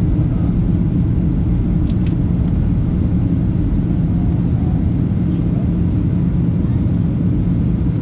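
Airliner cabin noise on approach to landing: the steady low rumble of the jet engines and airflow heard through the fuselage, with a constant low hum.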